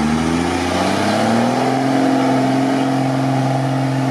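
IFA W50 off-road truck's engine pulling steadily under load as the truck wades through deep muddy water. Its pitch rises a little over the first second or so, then holds.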